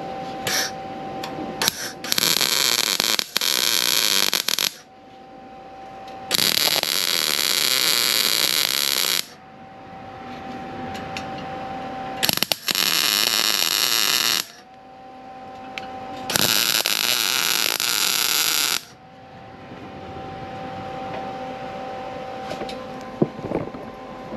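MIG welder laying four short tack welds, each a loud sizzling crackle of about two to three seconds, spaced by pauses. A faint steady whine fills the gaps between welds.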